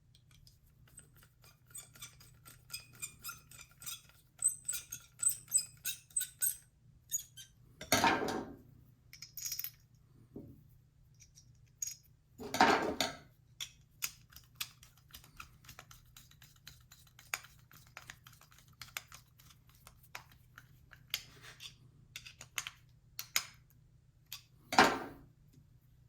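Small metal carburetor parts clicking, tapping and clinking as a snowblower carburetor is reassembled by hand, with a quick run of ringing clicks in the first few seconds. Three short, louder rushes of noise come about eight seconds in, about thirteen seconds in and near the end.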